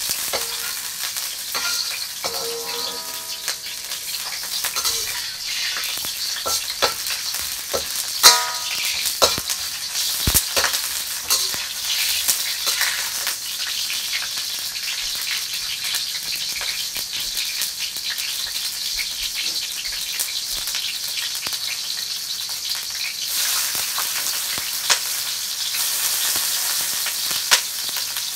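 Food frying in a hot pan with a steady sizzle, and a cooking utensil clicking and scraping against the pan now and then, most sharply a few times in the first third.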